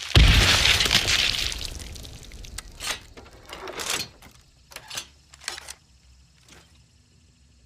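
Explosion sound effect: a sudden loud blast with a deep thump and shattering crash that dies away over about two seconds, followed by a handful of scattered clinks and rattles like falling debris.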